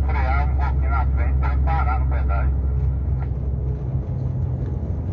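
Steady low drone of a truck's engine and road noise heard inside the cab while driving on the highway, turning rougher about four seconds in. A voice talks over it for the first couple of seconds.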